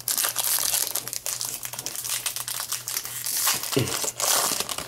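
Foil trading-card pack wrapper crinkling and crackling as it is handled and crumpled, busiest near the end.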